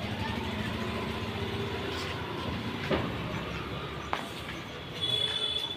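A motor vehicle engine running with a steady low rumble. There is a sharp click about three seconds in and a brief high-pitched tone near the end.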